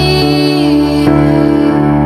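Slow, ambient worship music: sustained keyboard chords held steadily and changing about once a second.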